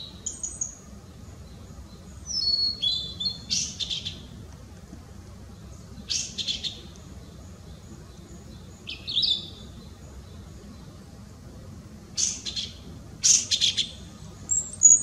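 Male blue-and-white flycatcher singing: short phrases every two to three seconds, each of clear slurred whistles ending in a burst of harsher, buzzy notes.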